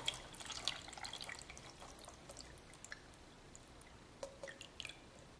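Water poured from a cup into a hotel coffee maker's reservoir, trickling and splashing faintly, then thinning to a few scattered drips.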